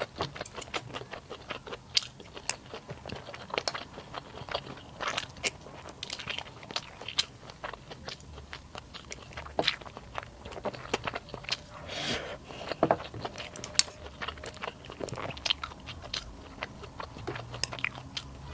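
A person eating close to the microphone: steady chewing with many irregular crisp crunches and wet mouth clicks.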